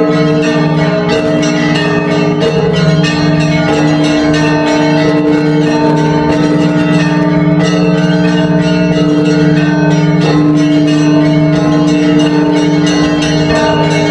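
Church bells ringing: many strikes in quick succession over a steady, overlapping hum of held bell tones.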